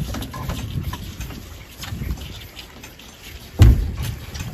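Plastic calf-feeding bottles being handled and set into the wire bottle holders on a calf hutch: faint knocks and rustling, with one loud thump about three and a half seconds in.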